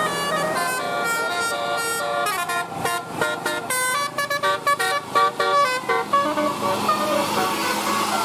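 Bus telolet horn, a multi-tone air horn, playing a melody of stepped notes, with quick short toots in the middle. At about six seconds it stops and gives way to engine and road noise.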